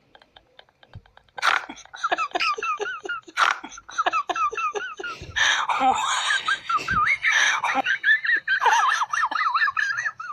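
High-pitched laughing in rapid repeated notes, starting about a second and a half in and growing fuller and noisier in the middle.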